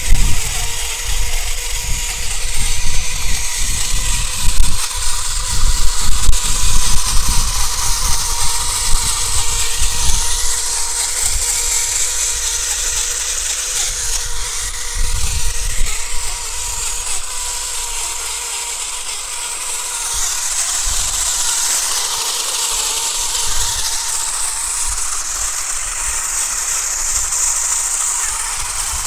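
Electric motors and gearboxes of a Mirana Duster 4x4 RC car and a stunt RC car whining at full throttle as they pull against each other in a tug of war. The steady whine is louder and more uneven for the first ten seconds, then evens out. The stunt car's tyres are losing grip on the dirt.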